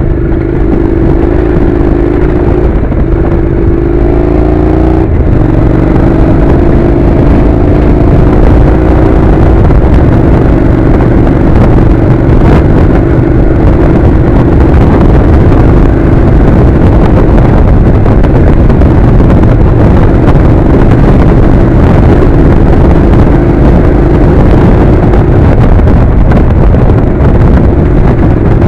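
A Honda NC700's parallel-twin engine runs as the motorcycle rides a gravel track, under a heavy low rumble of wind and tyres. The engine note climbs, drops about five seconds in, climbs again and then holds steady.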